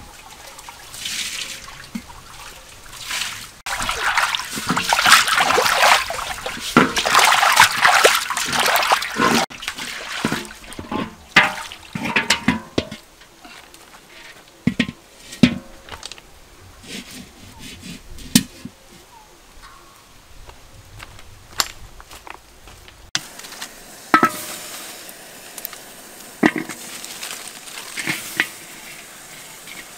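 Water splashing and sloshing in a large metal wok as it is rinsed, followed by scattered knocks and clanks as the wok is handled. Near the end come a few sharp, separate knocks of lemongrass being cut.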